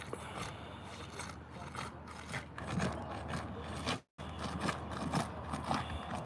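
Utility knife cutting and scraping through asphalt roofing membrane in short, irregular repeated strokes. The sound drops out completely for an instant about four seconds in.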